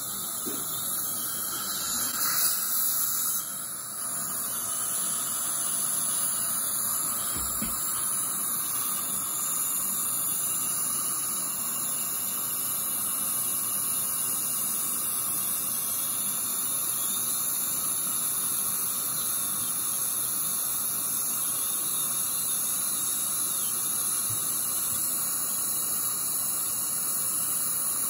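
High-speed dental handpiece whining steadily as its bur cuts a molar down for a crown, with the hiss of the suction tip. It eases off briefly a few seconds in, then runs on.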